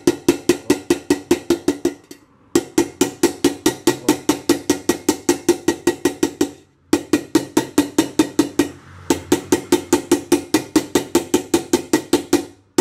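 Hammer striking the rim of a pressure cooker in quick, evenly spaced blows, about five a second, each with a metallic ring, in runs broken by short pauses. The hammering flattens a raised spot on the rim so the lid can seal and the cooker stops leaking.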